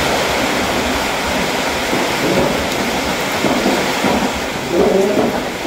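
A steady, loud hiss of noise, like heavy rain, that covers everything, with a person's voice briefly near the end.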